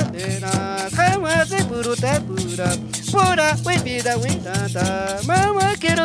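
Folk ensemble playing: a small flute carries a bending melody over a constant shake of maracas and a metal shaker, with a double-headed drum struck with a stick.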